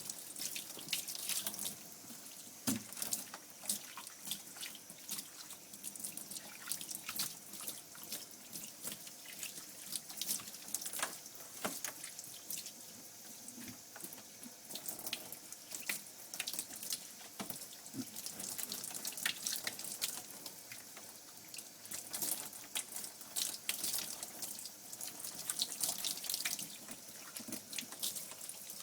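Water running from a bath shower head and splashing onto a wet dog's coat while the shampoo is rinsed out, an uneven spattering hiss with drips that does not stop.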